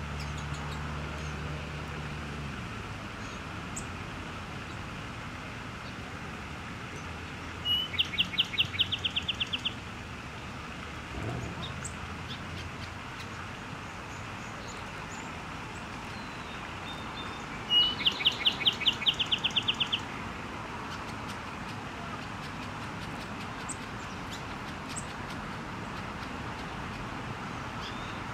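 A small songbird singing a rapid trill of quick repeated high notes, lasting about two seconds, twice about ten seconds apart, over steady outdoor background hiss. A low steady hum stops about two seconds in.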